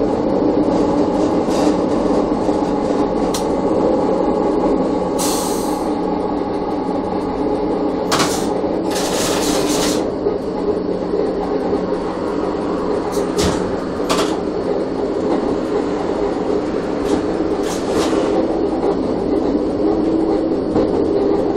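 Electric railcar ABe 4/4 641 running along metre-gauge track, heard from inside its driver's cab: a steady motor hum and running noise. A few short hisses come around the middle, with the odd sharp click.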